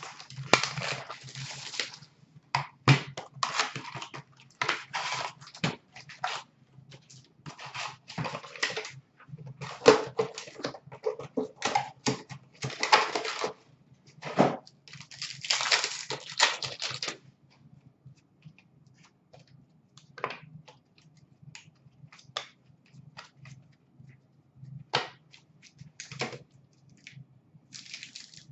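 Hockey card packs being torn open and their wrappers crinkled, with cards riffled, stacked and tapped on the counter: quick bursts of papery rustling and sharp clicks, busy at first and thinning to scattered clicks about halfway through, with rustling again near the end.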